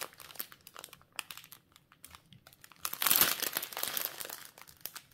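Clear plastic packaging crinkling and crackling as it is handled, with scattered small crackles and a louder burst of crinkling about three seconds in that lasts about a second.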